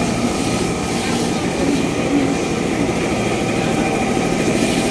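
Steady hum of KRL electric commuter trains standing at the platform, with the low murmur of a crowd of passengers.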